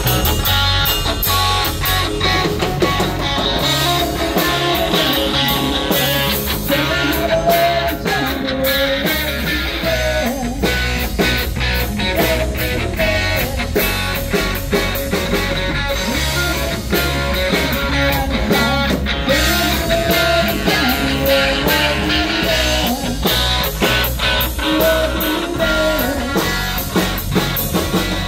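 Live rock band playing an instrumental passage, with no vocals: electric guitar carrying a melodic line over bass guitar and a drum kit.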